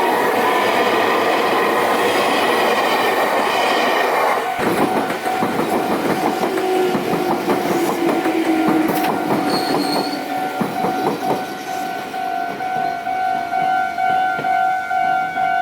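Electric train of the Meitetsu Inuyama Line passing over a level crossing, its wheels clacking over the rail joints. A level-crossing warning alarm rings steadily under the train noise. The train noise dies away about twelve seconds in, leaving the alarm ringing in a steady pulse.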